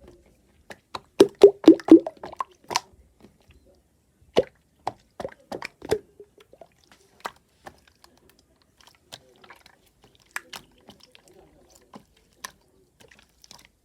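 Irregular wet pops and clicks: a quick run of them about a second in, then single pops every half second or so.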